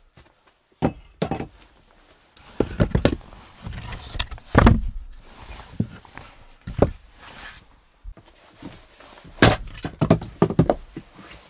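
Hatchet striking and splitting wood: a string of irregular sharp wooden thunks, the loudest about four and a half seconds in.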